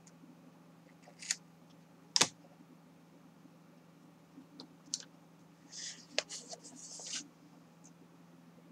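Scissors cutting into thick kraft cardstock, a quick run of short snips a little past halfway. Before them come a few sharp clicks and one knock about two seconds in as the sheet and tools are handled on the cutting mat.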